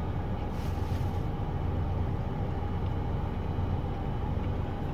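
Steady low rumble of a car's engine and cabin, heard from inside the car.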